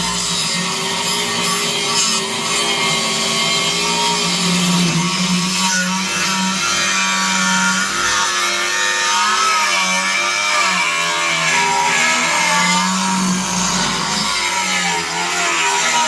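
Angle grinder running under load, cutting away the rotted bottom flange of a boat's trim and tilt motor bracket, its pitch wavering as the cut goes on.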